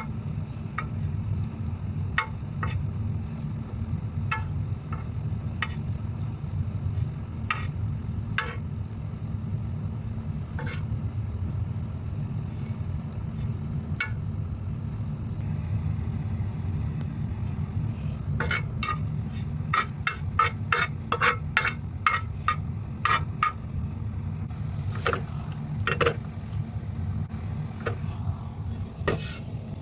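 A spoon clinking and scraping against a pot or cup while a remedy drink is stirred, with a quick run of clinks about two-thirds of the way through, over a steady low hum.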